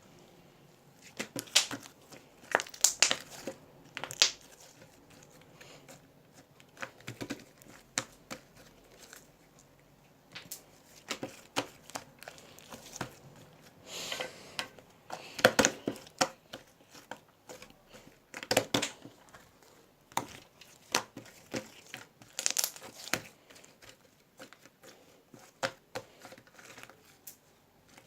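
Irregular crinkling and rustling handling noises, with sharp clicks coming at uneven intervals and quieter stretches between.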